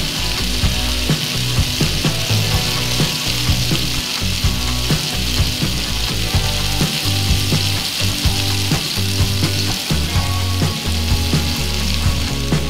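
Chopped tomatoes sizzling steadily in hot oil in a frying pan, with background music underneath.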